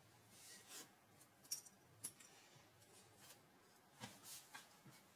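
Faint, scattered clicks and light rattles of small plastic LEGO Technic pieces being picked through and handled in a pile of loose parts, the sharpest click about a second and a half in.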